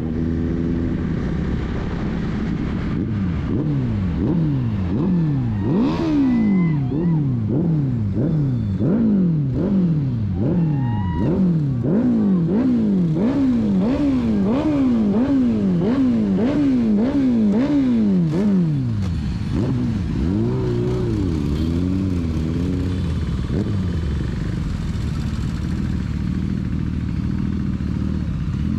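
Engine revved hard over and over, its pitch climbing and dropping about one and a half times a second. After about 18 seconds it settles into lower, steadier running with a few smaller swells.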